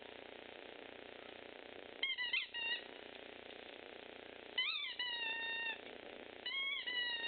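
Small puppy whining in high-pitched calls: a couple of short ones about two seconds in, a longer one that rises then slowly falls in pitch near the middle, and another near the end.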